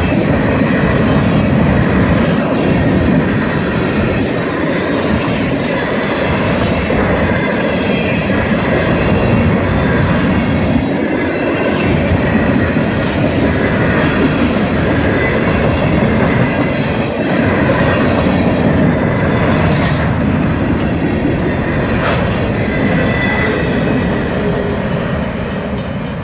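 Freight train of covered hopper cars rolling past at speed, a steady rumble of steel wheels on the rails, fading near the end as the last car goes by.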